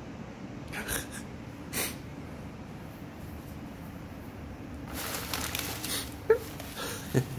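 Crumpled brown kraft packing paper crinkling and rustling as a cat plays in it: two short rustles early, a longer stretch of crinkling about five seconds in, then two sharp knocks near the end.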